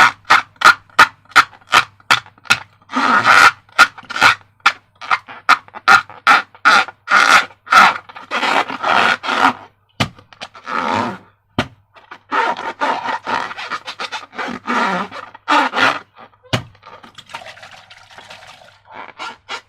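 Slime being squeezed and worked by hand: a run of short, sharp wet squelches and crackles, about three a second at first, then longer squishing strokes that grow fainter near the end.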